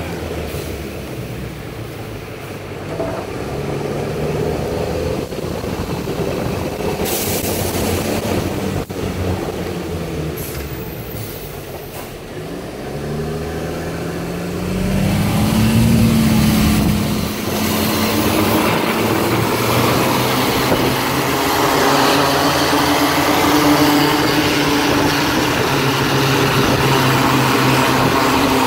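Freightliner M2 rear-loader garbage truck driving, heard from its rear riding step: the engine running under a steady hiss of tyres on wet pavement. About halfway through the engine pitch rises as the truck pulls harder, and it stays louder from there on.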